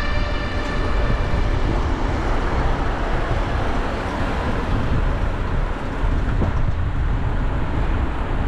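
Steady low rumble of urban vehicle traffic, without pauses or distinct events.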